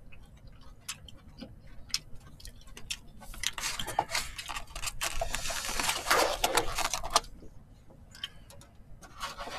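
Tableware sounds during a meal: chopsticks clicking against dishes. From about three and a half seconds in comes a denser run of clattering and scraping as plastic takeout containers and plates are handled and shifted on the table.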